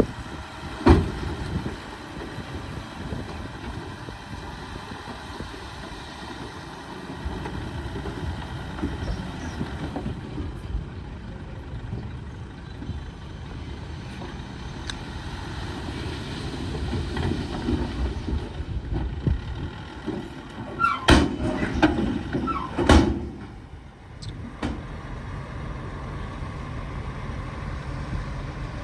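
Bulldozer's diesel engine running steadily under a low rumble, with sharp metallic clanks about a second in and twice more later on.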